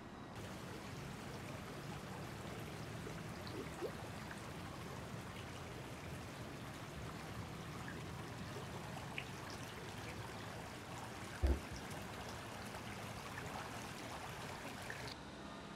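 Floodwater flowing across a street, a steady rushing hiss, with one brief low thump about eleven seconds in.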